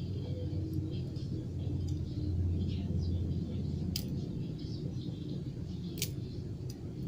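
Butterfly knife (balisong) handles clacking shut twice while it is flipped, a sharp click about four seconds in and another about six seconds in, over a steady low rumble.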